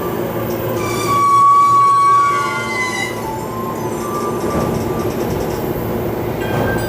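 A commuter train running at the station, a steady rumble of rolling noise with high steady ringing tones over it; the loudest tone starts about a second in and holds for more than a second.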